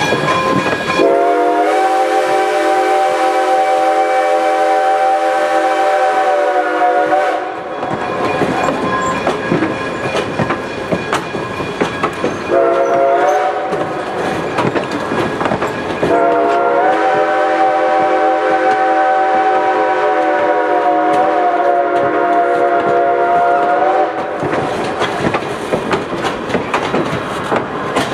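A Reading six-chime steam whistle on 4-4-0 steam locomotive #98 sounds from the head of the train: a long blast, a short one, then another long one. Underneath, the passing coaches' wheels clack steadily over the rail joints.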